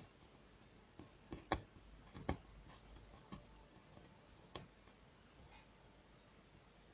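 Light, scattered clicks and taps of small parts being handled on a workbench, about eight in all, the sharpest two about a second and a half and two and a quarter seconds in.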